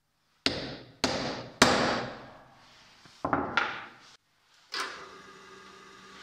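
Three sharp hammer blows on a center punch, marking hole positions in a small stainless steel plate on a plywood bench, each blow ringing briefly. Two lighter knocks follow as the hammer and punch are set down. Near the end a click is followed by a steady motor hum from a pillar drill press.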